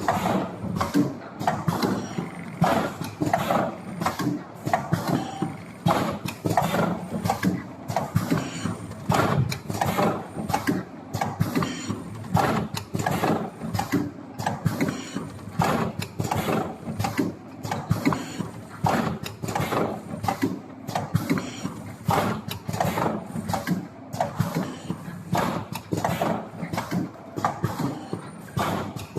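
Sauce pouch packing machine running: a steady stream of mechanical clacks and knocks with louder strokes about once a second as it works through its cycle.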